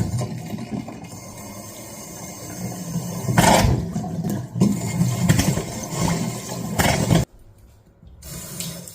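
Faucet spitting and sputtering as air trapped in the line pushes out with the water, in uneven rushing surges, stopping abruptly near the end.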